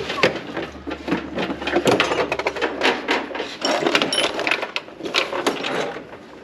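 A rapid, irregular run of knocks and clatters, with hard objects being handled and set down, in a small room.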